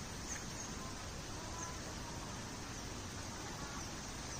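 Steady outdoor background noise, a low rumble with hiss, with a few faint, short, high bird chirps.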